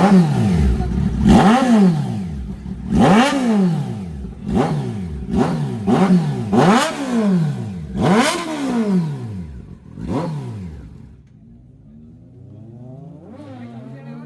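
Kawasaki Z900 inline-four engine with an SC Project aftermarket exhaust, revved in about eight quick throttle blips, each rising sharply and falling back. Near the end it drops back to a quieter idle.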